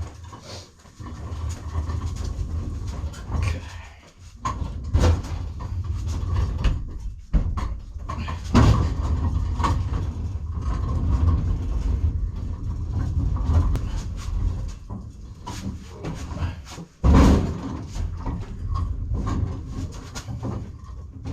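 Casters of a wheeled cabinet loaded with kitchen utensils rolling across the floor, with a steady low rumble, the contents rattling and repeated knocks and bumps as the cabinet is shoved into place.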